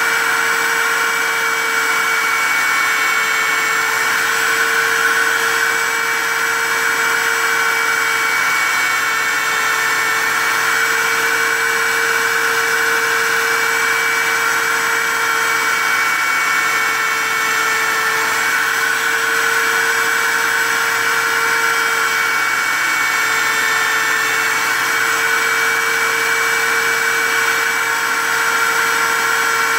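Tensilkut I tensile-sample milling machine running, its motor-driven cutter head machining an aluminum strip as the sample template is pushed back and forth across it: a steady whine that dips briefly a few times.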